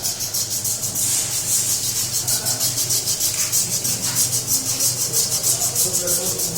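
Scooter brake-shoe lining being rubbed with sandpaper in rapid back-and-forth strokes, about six a second. The rasping roughens the lining so the brake grips well.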